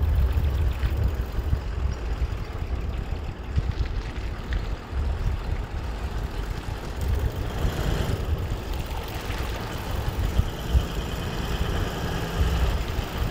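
Toyota LandCruiser 4WD engine running at low speed as it drives slowly through a shallow water crossing, a steady low rumble.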